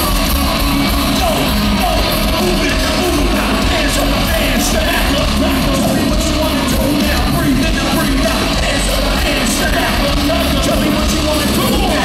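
Live rap-metal band playing loudly over a large hall's PA, with shouted, rapped vocals over heavy guitars, bass and drums, recorded from within the crowd.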